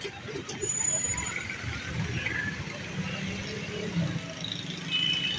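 Street background noise: passing traffic and scattered distant voices, with a brief high whistle about a second in.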